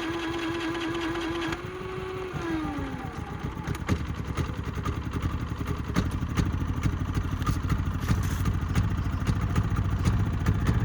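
Harbor Freight Predator 3500 inverter generator's electric starter whining steadily as it cranks, then winding down in pitch about two seconds in as the single-cylinder engine catches. The engine then runs with a fast, even low pulsing, a start won after repeated failures on a brand-new machine.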